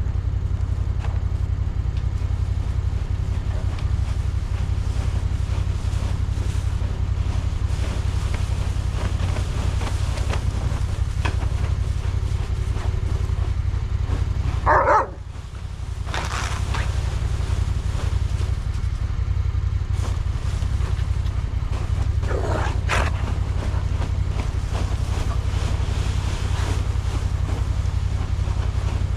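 Vehicle engine idling steadily with a low rumble. A couple of brief sharp sounds stand out, one about halfway through and another about three quarters in.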